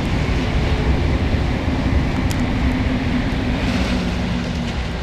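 Eurostar high-speed train passing at speed: a steady rush of running and air noise over a low rumble, with a faint steady hum, easing off slightly near the end.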